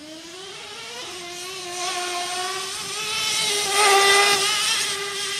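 Gas-powered RC truck's small two-stroke engine running at high revs, a buzzing whine that climbs in pitch in the first second and then holds steady. It grows louder to a peak about four seconds in, then fades.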